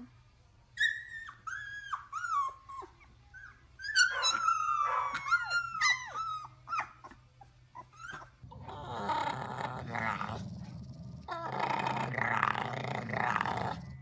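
A dog vocalising: a run of short, high whines for the first eight seconds or so, then a long, rough, growl-like sound from about eight seconds in to the end.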